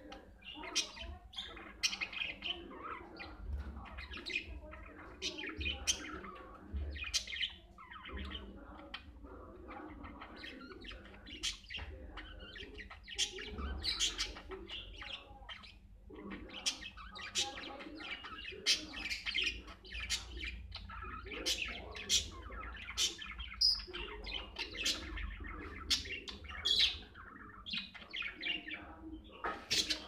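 Budgerigars chirping and chattering: a continuous run of short, sharp chirps in quick succession, with warbling chatter between them.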